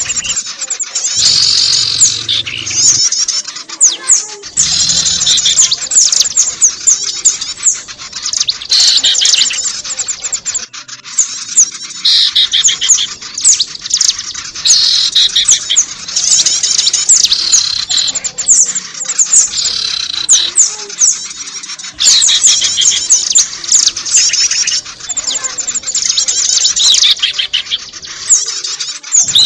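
Many small birds chirping and twittering at once in a dense, noisy chorus of rapid overlapping calls. This is a bird-luring recording with several species mixed together.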